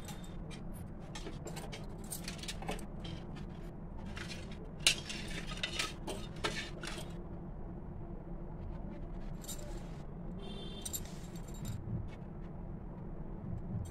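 Steel fork clinking and scraping against a stainless steel bowl and plate, over a steady low hum. There is a run of light clinks in the first half, with the sharpest strike about five seconds in, then only a few scattered clinks.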